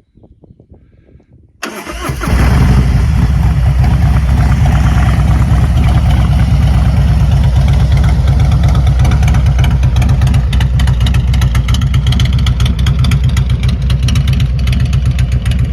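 Harley-Davidson Road Glide ST's Milwaukee-Eight 117 V-twin, fitted with a Zippers 468 cam and S&S 2-into-1-into-2 headers, cranking and catching about a second and a half in, then idling loud and steady through its aftermarket exhaust.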